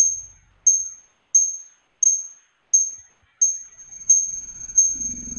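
A strange, high pinging: eight clear pings about two-thirds of a second apart, each dying away quickly, their rings running together near the end. A low rumble comes in near the end.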